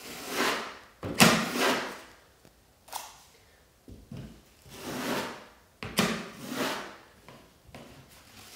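Wide steel drywall taping knife scraping spackle (joint compound) across a textured wall in about five strokes of roughly a second each, the loudest about a second in.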